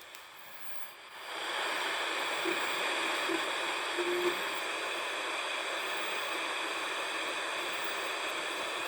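Steady radio static hiss from the Sanyo TPM2140's small built-in speaker, starting about a second in, as the radio sits between stations. A few brief faint tones come through the hiss.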